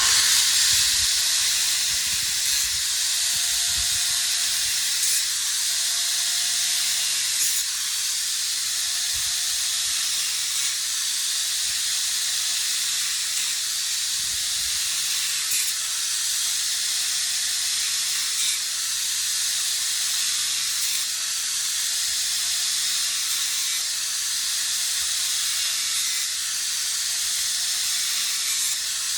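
A loud, steady hiss that starts suddenly, with a faint tone swelling and fading about every one and a half seconds.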